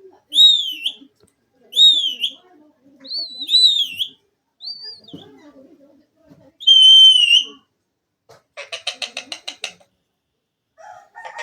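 Indian ringneck parrot whistling: a run of about five short, high, wavering whistles, then one longer, louder whistle, followed by a fast rattling chatter.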